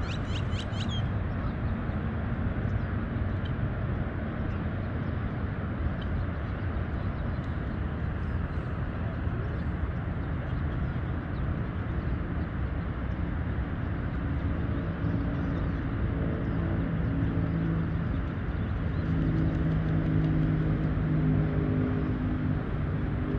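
Steady low outdoor rumble, with a distant engine drone that sets in about midway and grows, loudest near the end.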